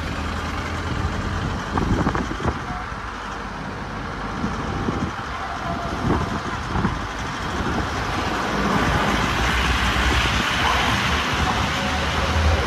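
Road vehicle under way: a steady low engine rumble with tyre and road noise, and a few short knocks and bumps. The noise grows louder and hissier about two-thirds of the way through.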